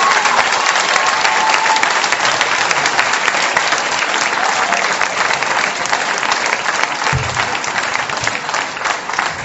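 Audience applauding: a dense, steady clapping that thins slightly toward the end, with a dull low thump about seven seconds in.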